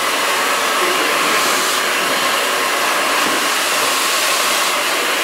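Handheld hair dryer running steadily, blowing air close against the hair.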